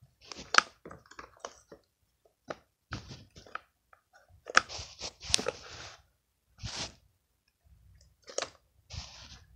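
Slime being squeezed and kneaded by hand, giving a series of irregular short squishes with sharp clicks and pops.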